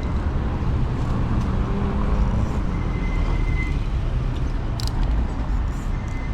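Wind buffeting the microphone and passing road traffic while riding an e-bike, a steady low rumble with a faint high steady tone coming and going.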